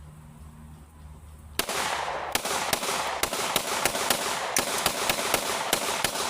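A low steady hum, then about one and a half seconds in a firearm opens up in a rapid string of shots, about three sharp reports a second over a dense echoing wash, continuing without a break.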